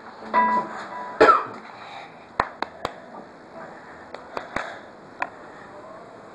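A pause between guitar passages: a brief pitched sound near the start, one louder sharp knock about a second in, then a handful of scattered sharp clicks and taps over faint steady background noise.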